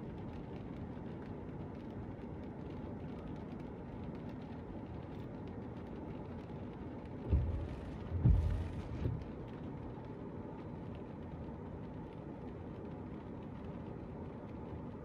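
Thunder: a short low rumble in a few swells about halfway through, lasting roughly two seconds, over a steady low background rumble.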